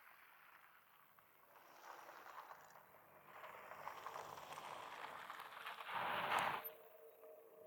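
Airbus A400M Atlas's four turboprop engines heard at a distance: a noisy rush that builds over several seconds, is loudest about six seconds in, and drops off suddenly.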